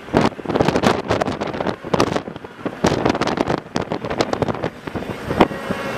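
Wind buffeting the microphone in irregular, rapid gusts over a low rumble.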